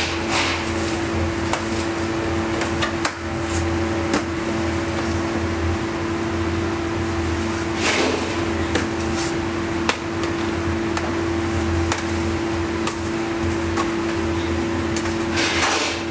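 Steady machine hum with a constant tone, under scattered light knocks and clatter on stainless-steel worktables and trays, and a few brief rustles of the plastic sheet covering the dough balls as they are handled.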